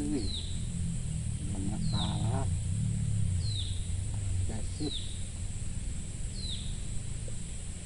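A bird repeating a short, high call that slides downward in pitch, about once every one and a half seconds, five times, over a steady low outdoor rumble.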